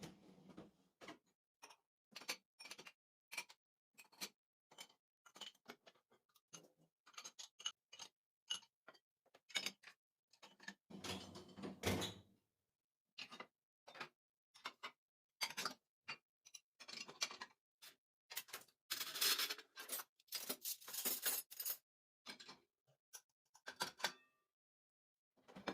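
Kitchen handling sounds: a string of light clicks and knocks of utensils and dishes, irregularly spaced, with two longer noisy stretches about eleven and nineteen seconds in.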